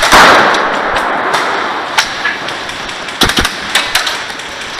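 A loud noisy blast at the start that fades over about a second and a half. It is followed by scattered sharp airsoft gun shots, with a quick cluster about three seconds in.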